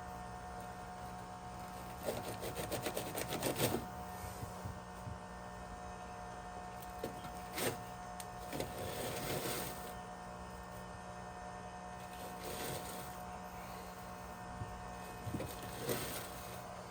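A steady low hum, with a quick rattling run of clicks about two seconds in and a few scattered knocks and rustles after.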